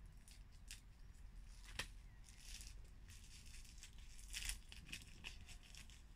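A small seed packet being cut open with scissors: one sharp snip about two seconds in, then faint crinkling and rustling as the packet is handled and pulled open.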